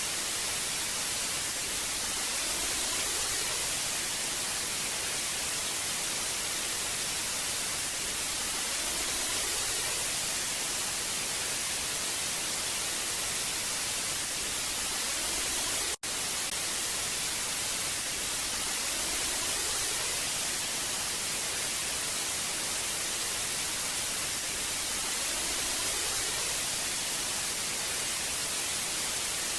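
Old analog TV static: a steady hiss, brightest in the treble, swelling gently every few seconds, with a brief cut about sixteen seconds in.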